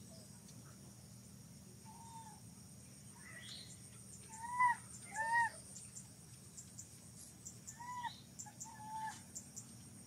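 A series of short animal calls, each rising and falling in pitch. There are about five, and the two loudest come close together about halfway through. A steady high-pitched hiss runs beneath them.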